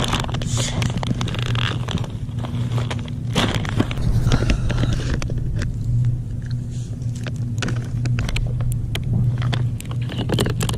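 Crackling and rustling of a jerky packet being opened and handled, with chewing, over a steady low hum.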